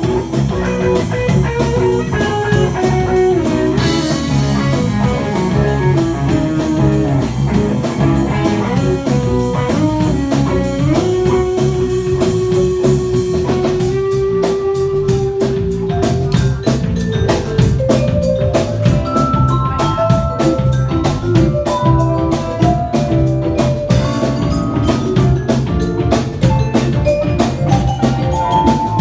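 Instrumental passage of a 1960s psychedelic rock song, played on guitar, bass and drum kit with steady cymbal strokes. About eleven seconds in, a melody line holds one long note for several seconds, then moves higher.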